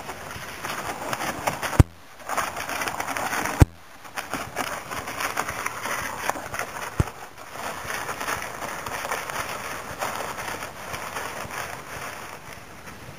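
Crunching and scraping on a gravel road: footsteps and a plastic whitewater kayak dragged over loose stones, a dense crackle throughout. Two loud sharp knocks stand out about two seconds in and again nearly two seconds later, with a lighter one about seven seconds in.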